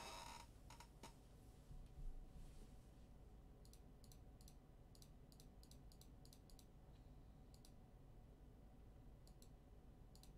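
Faint clicking of computer keys in short irregular runs over near-silent room tone.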